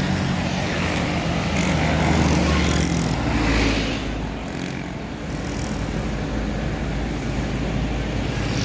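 Roadside traffic: a heavy engine runs with a low steady note, then a large vehicle passes close by about three seconds in with a rush of road noise, and traffic noise carries on.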